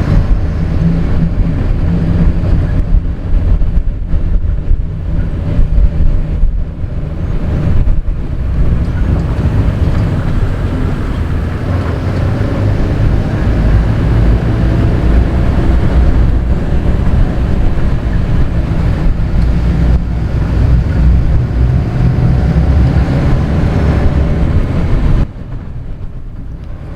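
Game-drive vehicle driving on a bush track: a steady, loud engine and drivetrain rumble with a faint whine and wind buffeting on the microphone, cutting off abruptly near the end.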